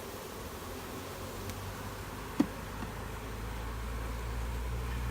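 A swarm of honey bees buzzing around an opened swarm trap. A single sharp click sounds about two and a half seconds in, and a low steady hum comes up in the last couple of seconds.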